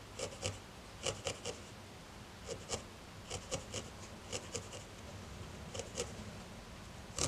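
Barbed felting needle stabbing over and over into wool, faint short crunchy pokes at an uneven pace of about two or three a second, tacking a thin strand of dark brown wool down as a smile line.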